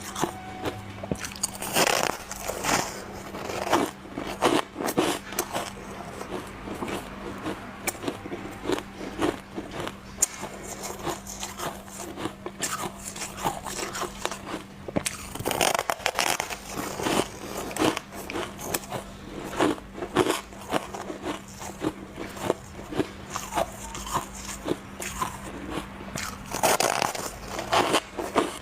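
Shaved, refrozen ice being bitten and chewed close to the microphone: a continuous run of crisp crunches and crackles. Heavier bites come a couple of seconds in, about halfway through, and near the end.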